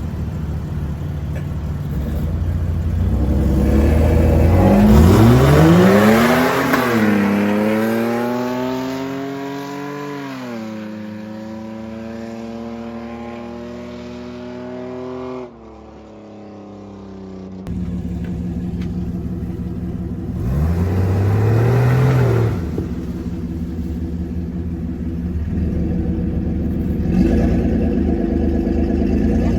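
4x4 mud drag vehicle engine revving hard on a run. The pitch climbs steeply for a few seconds, then eases off and holds before cutting off abruptly. Engine noise comes back later with another short rev that rises and falls.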